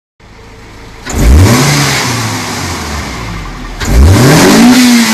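Toyota AE86 Trueno's 4A-GE four-cylinder engine revved twice: about a second in and again near the end, the pitch climbing quickly each time and then sinking slowly back toward idle, the second rev higher than the first.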